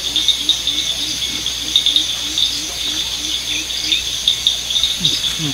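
Steady chorus of crickets and other insects, with a low note repeated about five times a second until shortly before the end, then two short falling calls.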